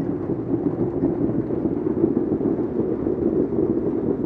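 Heavy hail mixed with rain pelting parked cars and pavement: a loud, steady din of countless small impacts.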